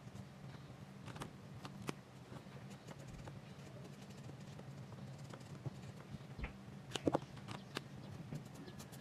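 Alcohol marker nibs tapping and stroking on sketchbook paper: scattered small clicks and scratches, a cluster of sharper clicks about seven seconds in, over a steady low hum.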